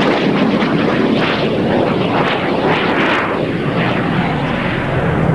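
Jet noise from a Canadair CF-116 Freedom Fighter's twin turbojets in flight: a loud, steady rushing roar.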